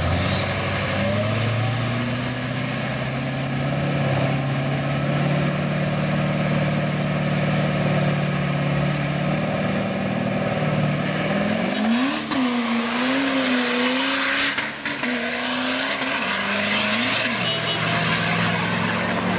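Twin-turbo Chevy S10 engine under acceleration. A turbo whistle rises over the first few seconds and holds high, then cuts off about halfway through as the throttle comes off, and the engine note after that rises and falls.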